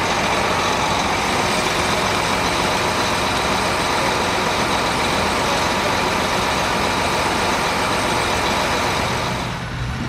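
John Deere 8360R tractor's diesel engine idling steadily close by. The sound drops away abruptly near the end.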